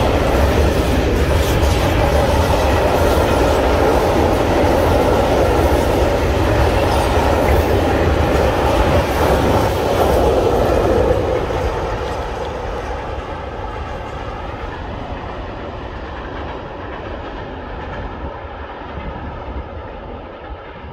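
Freight train of empty sugar-beet wagons rolling past. It stays loud for about the first ten seconds, then fades steadily as it moves away.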